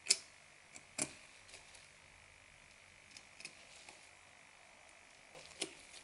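Faint, scattered small metallic clicks of a precision screwdriver working a tiny screw at the Taptic Engine bracket inside an iPhone 13, the sharpest just after the start and about a second in, with a few more near the end. A faint steady high-pitched hum lies underneath.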